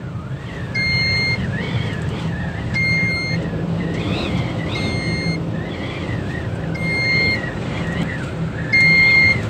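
An electronic warning beeper on heavy machinery sounds short, even beeps about every two seconds. Underneath are a steady engine hum and the rush of a high wind in a sandstorm, gusting at around 80 km/h.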